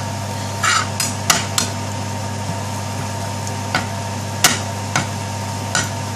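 Metal spoon scraping and knocking against a non-stick frying pan while stirring fried onions and ground spices, with about eight sharp, irregular scrapes and taps over a steady low hum.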